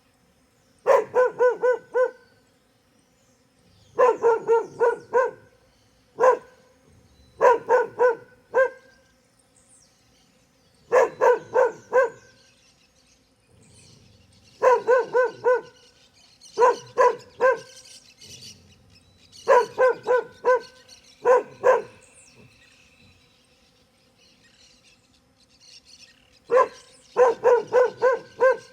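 A dog barking in quick bursts of four or five barks, each burst lasting about a second, repeated again and again with short pauses between them.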